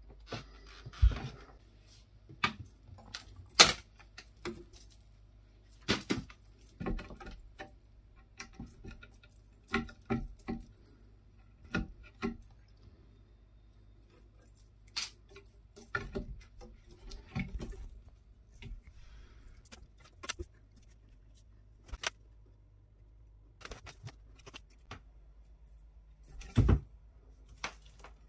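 Small metal bell on a cat's wand toy jingling in irregular bursts as it is shaken and batted about, with a couple of dull thumps about a second in and near the end.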